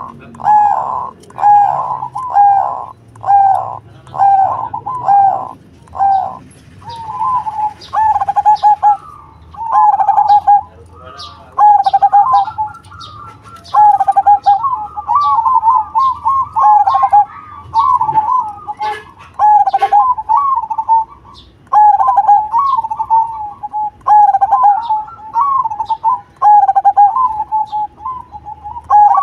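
Zebra dove (perkutut) singing its cooing song: quick, evenly repeated coo notes at first, then longer rolling, trilled phrases, one after another.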